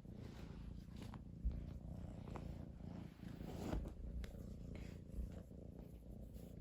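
Domestic cat purring steadily, with a few soft clicks and a brief low thump about a second and a half in.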